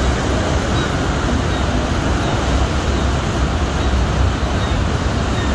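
Niagara Falls roaring close up: a loud, steady rush of falling water and spray with a heavy low rumble, heard from aboard a tour boat.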